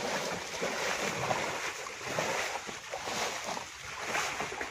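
Water splashing and sloshing, swelling and falling about once a second.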